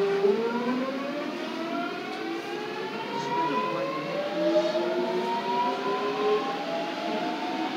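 Busan Metro Line 2 subway train's traction motors and inverter whining as it pulls away from a station, heard from inside the car. Several tones climb steadily in pitch as the train accelerates.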